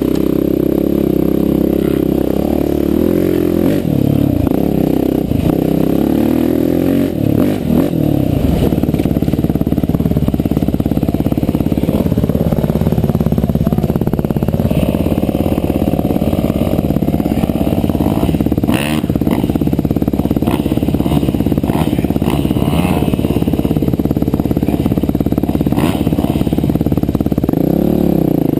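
Husqvarna enduro bike's single-cylinder four-stroke engine running at low, changing revs while ridden along rough singletrack, its pitch rising and falling with the throttle. A few short knocks from the bike over rough ground.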